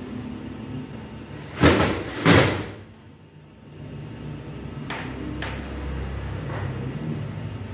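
Two loud knocks about half a second apart, followed a few seconds later by a few lighter clicks: hands and tools at work on a washing machine's sheet-metal back panel while it is being screwed shut.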